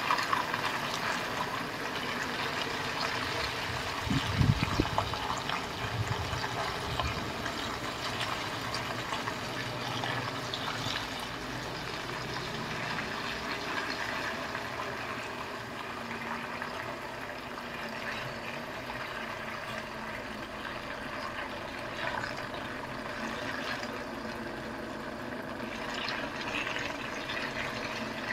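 A 25-metre road train, a Volvo tractor unit with two refrigerated trailers, reversing slowly: a steady hum and hiss of engine and machinery with several held tones. A few low thumps come about four to six seconds in.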